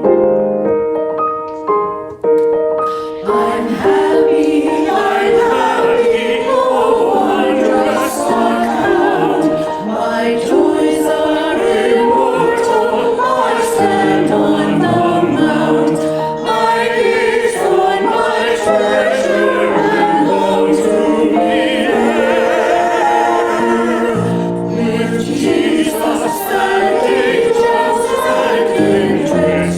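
A choir singing, entering fully about three seconds in after a few sparse held notes.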